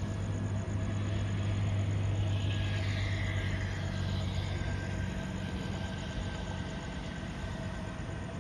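Low, steady rumble of a slow-moving metro train and traffic, which eases off about five seconds in. A vehicle passes by, rising and falling, between about two and four seconds in.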